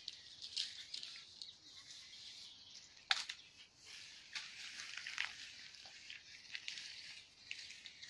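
Dry grass, twigs and brush rustling and crackling underfoot and under hand as the undergrowth is searched, with a sharp snap about three seconds in.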